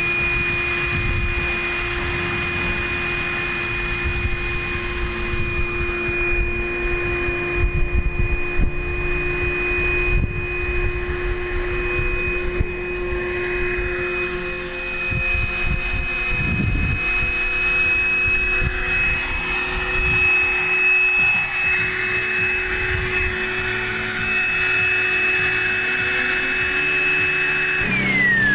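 Battery-powered electric air pump inflating an inflatable boat through its hose, running with a steady whine. Near the end its pitch drops sharply.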